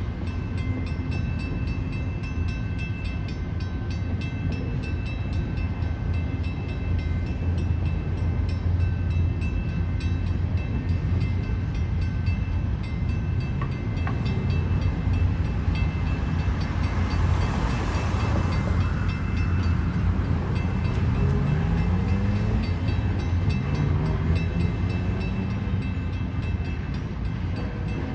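Train rolling past, its railcars making a steady low rumble. High, steady ringing tones sit over the rumble, and a rushing swell of noise peaks about two-thirds of the way through.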